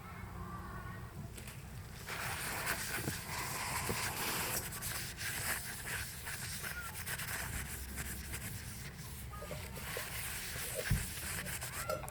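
A wood-stove cooking fire crackling and hissing, with scattered sharp pops; the hiss sets in about two seconds in.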